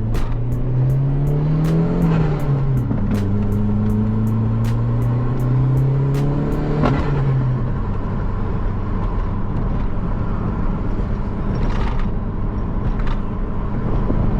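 Turbocharged 2.0 engine of a Mk4 Jetta pulling under acceleration while driving. Its pitch rises, dips about two seconds in as with a gear change, climbs again, then falls away around seven seconds, leaving steady running and road noise.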